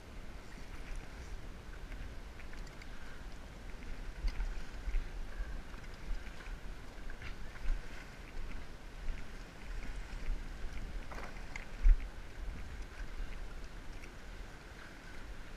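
Wind rumbling on the microphone over small waves lapping at a dock's edge, with scattered light clicks and one sharp knock about twelve seconds in.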